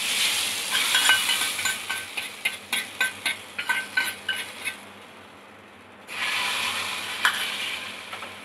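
Hot ghee tadka of cumin, dried red chillies and curry leaves sizzling as it hits the dal khichdi, with a spoon clicking against the pan. A second burst of sizzling comes about six seconds in.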